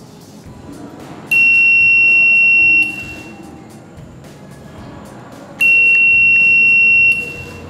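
Electronic buzzer on an 8051 microcontroller board giving two long, steady, high beeps of about a second and a half each, some three seconds apart, signalling the change in the railway gate's state from opened to closed.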